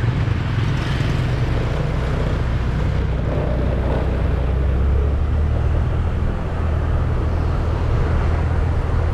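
Motorcycle engine running steadily, a low hum.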